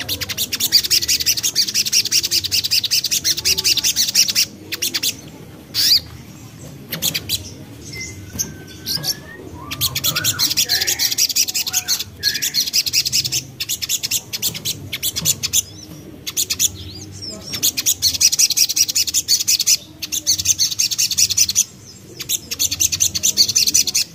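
Crimson sunbird (sogon) singing: long runs of very fast, dense, high twittering, broken by short pauses. Softer, lower bird calls sound underneath.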